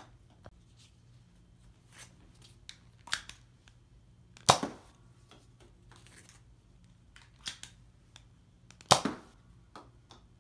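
Nerf N-Strike SnapFire spring-powered dart blaster fired twice, two sharp shots about four and a half seconds apart. Between the shots come softer clicks and clacks as a dart is loaded and the priming handle is pulled back.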